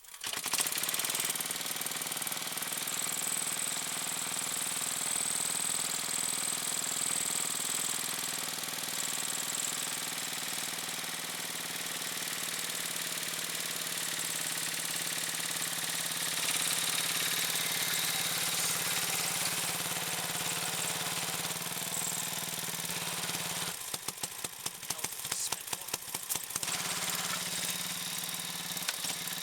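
Massey Ferguson lawn tractor's small engine running steadily under load as it tows a car on a dolly. About three-quarters of the way through the sound turns choppy and uneven for a few seconds, then steadies again.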